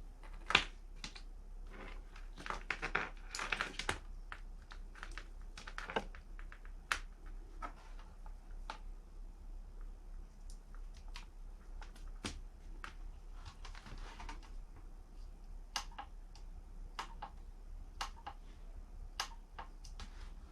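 Scattered light clicks and taps at irregular intervals, with a short stretch of rustling or scraping about two to four seconds in, over a faint steady low hum.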